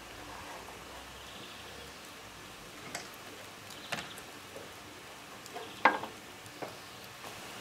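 Hot liquid sizzling in a steel trough over a wood fire as a wooden bow core is boiled in it to harden it while keeping it flexible, with a few crackles. A sharp knock about six seconds in as a lump is set down on the trough.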